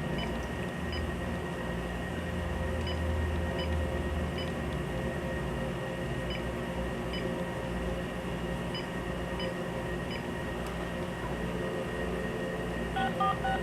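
Low steady room hum with faint ticks. Near the end, a phone starts dialing out: a quick run of short touch-tone beeps at changing pitches.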